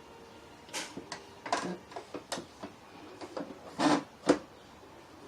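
A sewing machine's white add-on table being slid onto the machine. There is a series of knocks and scrapes, then a longer scrape, then a sharp click a little past the middle, the loudest sound, as the table locks in place.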